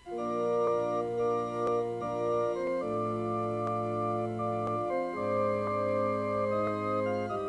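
Organ music begins: slow, sustained chords with a low bass line, the harmony changing every two seconds or so.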